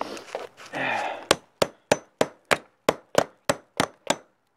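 Hammer driving a nail into a wooden board: about ten quick, even strikes, roughly three a second, each with a faint ring. They start about a second in and stop shortly before the end.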